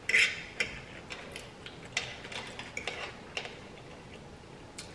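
A fork clicking and scraping against a serving tray as food is picked up: a loud scrape right at the start, then scattered sharp taps for about three seconds and one more near the end.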